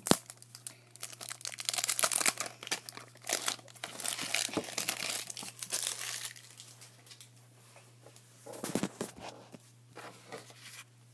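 Plastic wrapping on a Magic: The Gathering intro-pack deck being torn open and crinkled, in dense crackling bursts for the first six seconds or so, then quieter, with one more short burst near the end.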